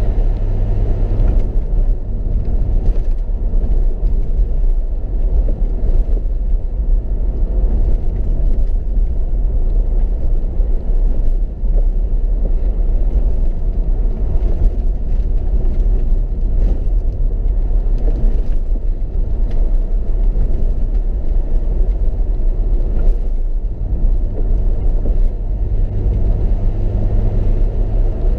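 Mercedes SLK 55 AMG's V8 engine and road noise heard inside the cabin as the car drives steadily along a wet road, a constant low rumble.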